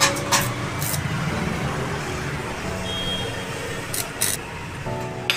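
A few sharp metallic clicks and taps as stainless steel strips are handled and set against each other at a corner of a gate frame, over a steady mechanical hum.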